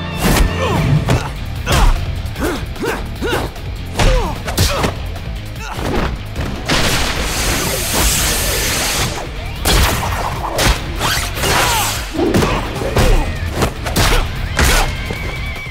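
Animated fight soundtrack: a quick run of punches, thuds and crashes with grunts of effort over a music score. A longer noisy crash lasts about two seconds from about seven seconds in.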